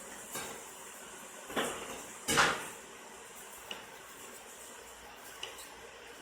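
Small metal needle-nose pliers clicking and scraping as they stretch heat-shrink tubing: a few light clicks, with one louder brief rattle a little over two seconds in.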